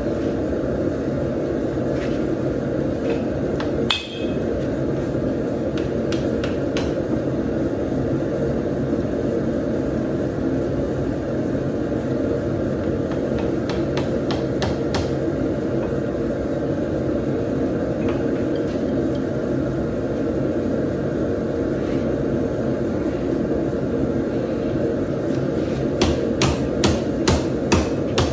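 Steady rushing noise of a running forge, with scattered light metal clicks. Near the end a run of regular hammer blows on steel starts, about two and a half a second, as the coil spring steel is forged.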